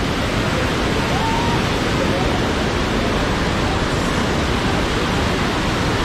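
Swollen, muddy waterfall and stream in flood after hours of heavy rain, the water rushing in a loud, steady, unbroken noise.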